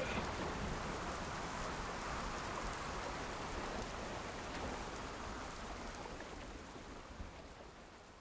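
Steady hiss of falling or rushing water, fading out slowly.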